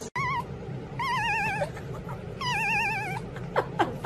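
Kitten meowing: three high, wavering meows, the later two under a second each, then a few short squeaky cries near the end, over a low steady hum.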